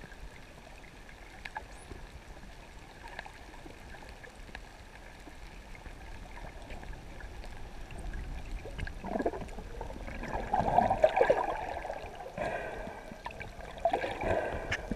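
Underwater water noise: faint scattered clicks in the first half, then irregular gurgling and bubbling that grows louder from about nine seconds in.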